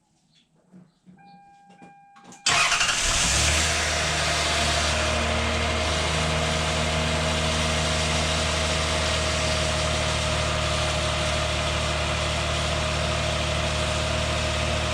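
Car engine started for the first time after an oil change: after a few faint clicks and a short beep, the engine cranks and catches about two and a half seconds in, revs briefly, then settles into a steady idle.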